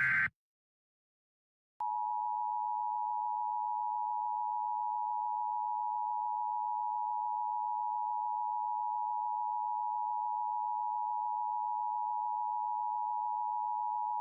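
The last moment of an EAS digital header burst (fast warbling data tones), then a short silence, then the Emergency Alert System two-tone attention signal, two pure tones near 853 and 960 Hz sounding together, held steady for about twelve seconds. It is the signal that announces an emergency alert message is about to be read.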